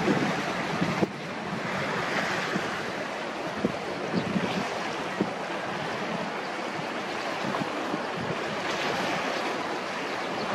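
Wind buffeting the microphone over choppy water, with waves lapping: a steady rushing noise. A brief knock comes about a second in, and the noise drops slightly after it.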